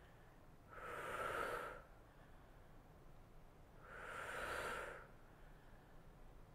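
A woman's breath: two long, audible exhales about three seconds apart, each lasting about a second, breathed out with the effort of tricep presses against heavy spring resistance.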